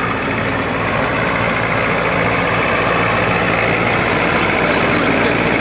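Farm tractor's diesel engine running steadily close by, the tractor bogged down in deep mud.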